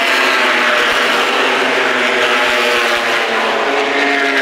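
A pack of short-track racing trucks at speed just after the start, many engines running at once with their pitches overlapping and shifting as the field goes past.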